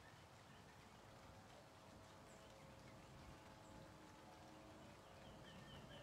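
Near silence: faint outdoor background with a few faint high bird chirps, a quick run of them near the end.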